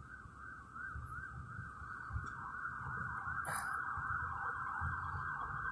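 Emergency vehicle siren wailing in a fast yelp, its pitch sweeping up and down several times a second.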